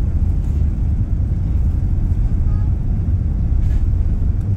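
Steady deep roar inside the cabin of an Airbus A380: its four Rolls-Royce Trent 900 engines and the airflow heard through the fuselage under takeoff or climb power.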